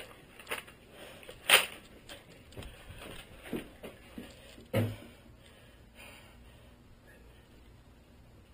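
A few scattered knocks and thumps, the sharpest about one and a half seconds in and another near five seconds in, then quieter.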